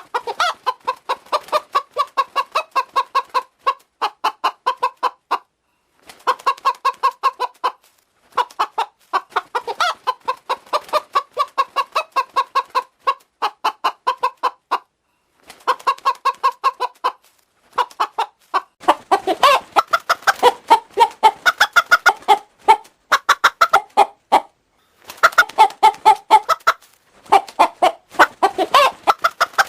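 Hen clucking in quick runs of about four clucks a second, broken by short pauses. About nineteen seconds in the clucking gains a second, lower-pitched layer: the same hen run through a voice changer's two-pitch effect.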